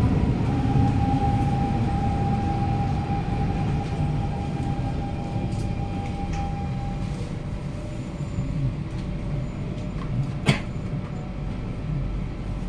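Siemens C651 train's traction motor whine, heard inside the carriage over a low rumble as the train brakes into the station, falling slightly in pitch and fading out about seven seconds in as it comes to a stop. The regenerative braking is not at full power, so the ordinary motor tone is heard rather than the 'double motor' sound. A single sharp click comes near the end.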